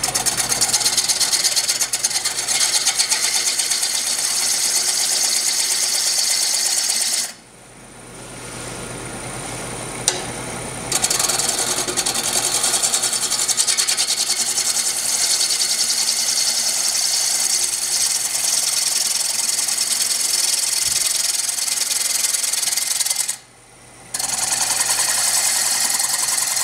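A 5/8-inch bowl gouge cutting a spinning walnut bowl on a wood lathe: a loud rasping shear of wood with a fast, even pulse. The cut stops twice, for a few seconds about seven seconds in and briefly near the end.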